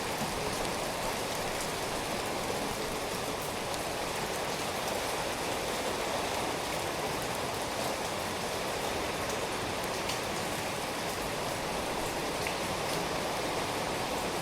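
Steady rain falling, an even hiss of rain with scattered individual drop taps.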